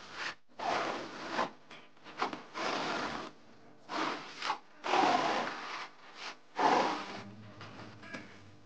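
Hand tool rubbed and scraped over a wall surface in about ten uneven strokes, dying down near the end.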